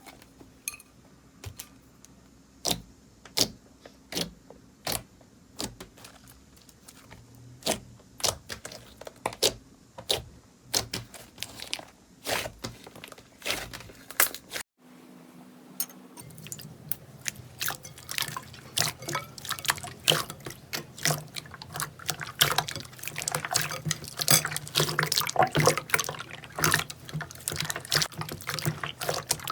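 Slime being handled and squeezed close to the microphone, with wet, sticky clicks and pops. The pops come sparsely at first, then, after a short break about halfway through, in a dense crackling run.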